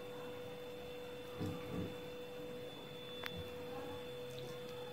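A steady humming tone with one clear pitch runs in the background. A few soft thuds about a second and a half in and a faint click later come from hands placing dollops of chicken filling on a sheet of dough.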